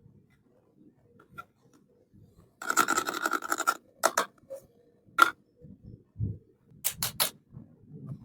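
Small plastic toy-kitchen pieces being handled: about a second of rustling scrape, then several sharp clicks and soft knocks, three clicks in quick succession near the end.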